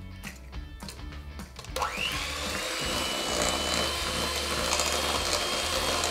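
Electric hand mixer switched on about two seconds in, its motor whining up to speed and then running steadily as the beaters work an egg into creamed butter and sugar. Background music plays underneath.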